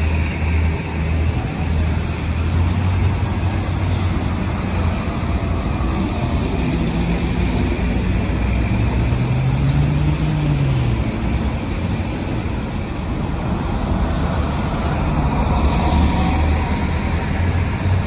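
Diesel engines of MCI highway coaches running as the buses pull away and pass close by, a steady low drone with one engine note rising and then falling about ten seconds in.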